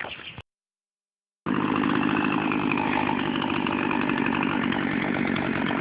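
Gasoline chainsaw running at a steady speed, starting abruptly about a second and a half in after a moment of silence.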